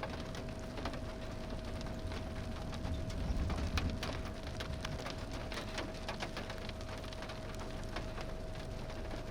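Rain falling, with individual drops striking as scattered sharp ticks several times a second, over a low wind rumble that swells about three seconds in. A faint steady hum runs underneath.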